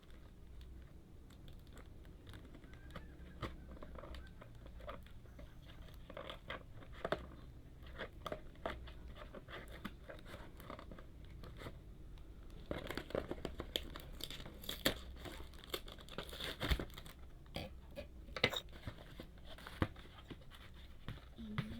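A parcel's packaging being torn open and its wrapping crinkled and rustled: irregular rips and crackles, busiest and loudest from a little past halfway on.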